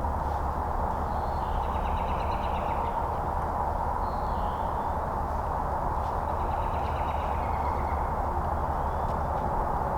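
A small bird singing, two trilled phrases that fall in pitch with a short call between them, over a steady background hiss.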